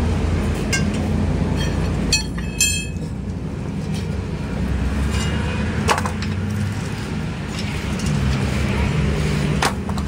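Steady low hum of a running vehicle engine, with scattered metallic clinks and knocks as a hydraulic bottle jack and its steel handle are worked and the jack is moved and set down on a stone block; a quick run of ringing clinks comes about two seconds in.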